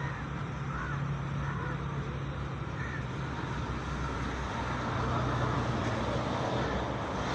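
Steady outdoor road-traffic rumble with a low engine drone, and a few faint short calls in the first few seconds.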